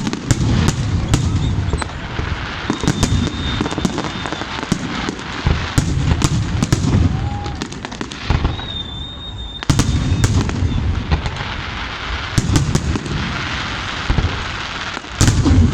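Aerial fireworks going off in rapid succession: many sharp cracks and clusters of deep booms, with a dense crackling haze between them. A high whistle is held for about two seconds, twice.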